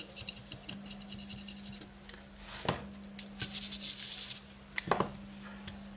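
Scraping and rubbing by hand as an old, dried-out thermal pad is worked off a laptop's cooling parts, with a stretch of harsher scraping in the middle and a few sharp clicks near the end. A steady low hum runs underneath.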